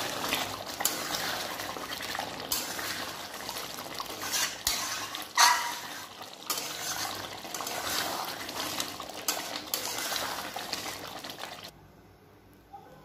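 Metal spatula scraping and knocking against a metal kadai while stirring a thick, simmering potato curry, with wet sloshing of the gravy. The stirring stops abruptly near the end.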